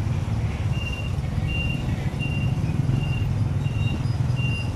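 Motorcycle engine running at low speed while riding, a steady low rumble. A short high beep repeats about every three-quarters of a second over it.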